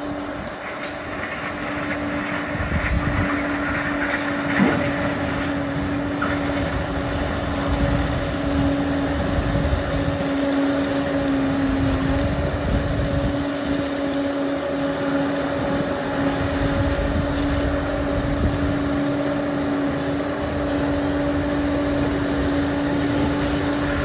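Liebherr PR 746 crawler dozer running and working: a steady drone with a constant whining tone over a low rumble.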